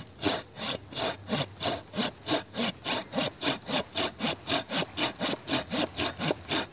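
Silky Gomboy Curve folding pull saw with a 240 mm curved blade sawing back and forth through a fallen branch about 5–6 cm thick. The strokes are quick, even and rasping, about four a second. The saw clears the most sawdust on the pull stroke.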